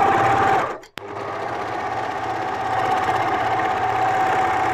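Overlock machine (serger) running steadily as it stitches and trims the edge of the fabric. It stops briefly about a second in, with a click, then starts again and runs on.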